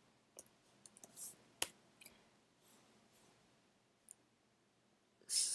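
A few faint, separate keystrokes on a computer keyboard, the sharpest about one and a half seconds in, then a lone tap a few seconds later.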